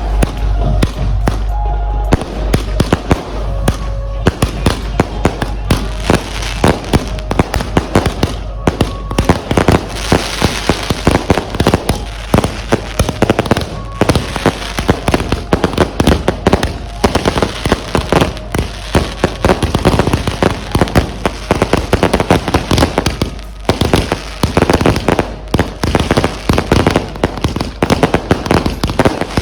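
Fireworks going off in a dense, irregular barrage: many sharp bangs and cracks a second, overlapping, with band or DJ music playing underneath.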